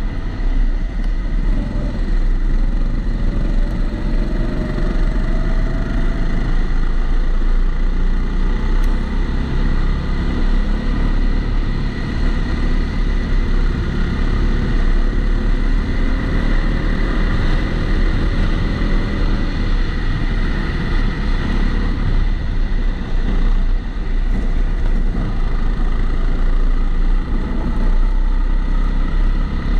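Onboard sound of a Kombikart Eco rental go-kart engine running at speed under a heavy, steady rumble, its pitch climbing slowly along the straights. It is muffled by the camera's waterproof housing, with a constant thin high tone throughout.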